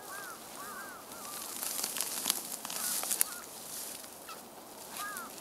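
A steel shovel cutting into damp soil and lifting a clod, a scraping rush with sharp knocks in the middle, the sharpest about three seconds in. A bird calls repeatedly with short arched calls, a quick run at the start and again near the end.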